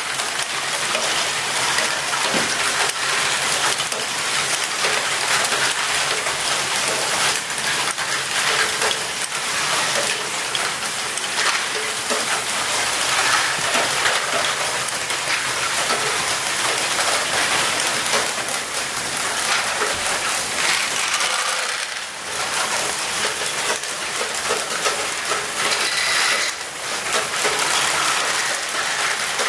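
A dense, continuous clatter of many small plastic Lego balls rolling, dropping and knocking together as they pass through a Lego ball-moving machine, mixed with the clicking of its Lego mechanisms.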